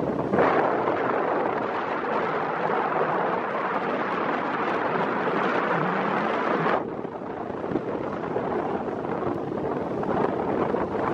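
Wind buffeting the microphone, a steady rushing noise whose upper part drops away suddenly about seven seconds in.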